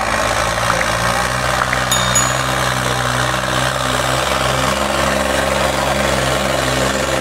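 John Deere tractor's diesel engine running hard at steady revs as it drags a harrow through loose soil, a constant heavy drone.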